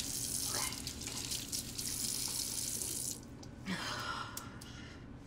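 Faucet running water into a sink for about three seconds, then shut off abruptly.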